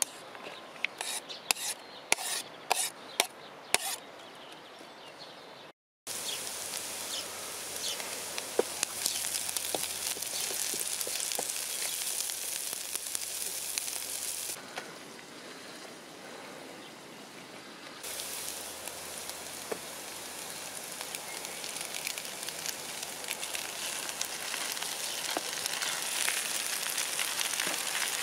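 Sliced onion scraped off a plastic board into a Trangia pan with a knife, a run of sharp clicks and knocks for the first few seconds. Then onions sizzle as they fry in the pan, stirred with a wooden spoon.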